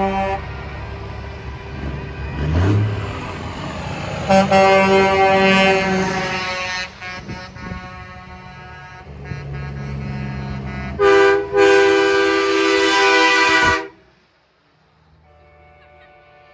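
Semi-truck air horns blowing several long blasts as trucks pass, over engine rumble. The loudest blast comes near the end: a short toot, then a long one held about two seconds that cuts off sharply. After it the sound drops to a faint hum.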